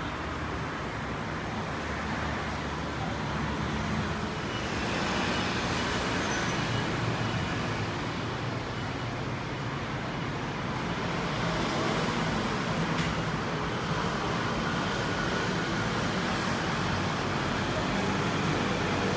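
Steady road traffic noise from passing vehicles, swelling slightly about five seconds in and again later.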